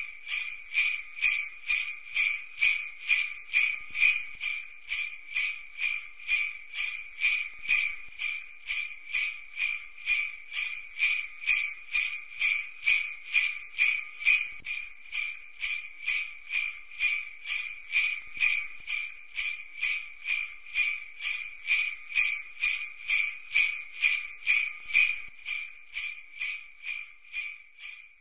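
Sleigh bells shaken in a steady rhythm, about two shakes a second, dying away at the very end.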